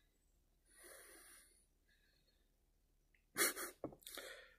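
A man's breath sounds close to the microphone: a faint breath about a second in, then two short, sharp, louder breaths or sniffs near the end.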